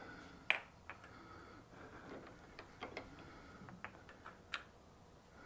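A plastic tube being handled and slid onto a freshly turned metal spigot held in a lathe chuck: a handful of faint, scattered clicks and taps. The sharpest comes about half a second in.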